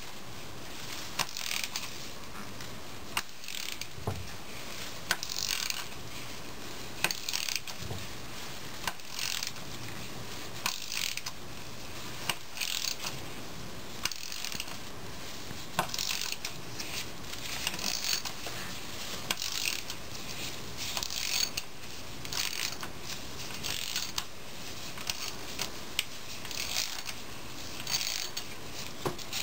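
Hand ratchet wrench with a 3/8-inch 12-point socket clicking in short bursts every second or two, stroke after stroke, as it backs out the fourth clutch bolt of a 4L80E transmission.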